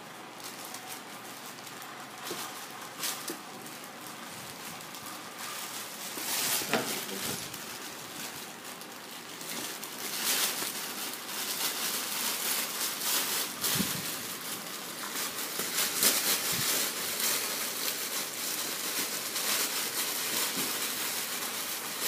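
Crinkling and rustling of a shiny plastic gift bag being handled and pulled at to open it, in irregular crackly bursts that get busier after about six seconds.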